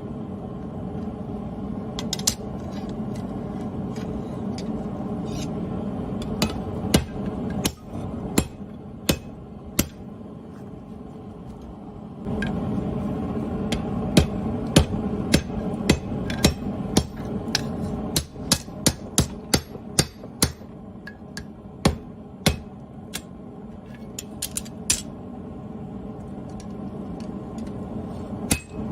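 Hammer blows forging a steel machete blade: a long series of sharp metallic strikes, running at about two a second in the later part, over a steady background rush that drops out about a quarter of the way in, returns before the middle and fades soon after.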